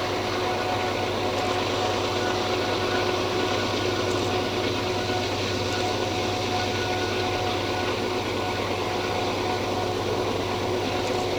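A loaded freight train's diesel locomotives working at full throttle (notch 8) up a steep grade. They make a steady heavy rumble with a constant high whine over it.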